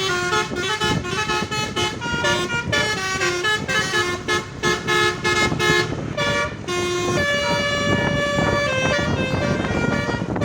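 Basuri telolet truck horn, a set of multi-tone air horns, playing a melody: a run of quick short notes, then longer held notes from about seven seconds in.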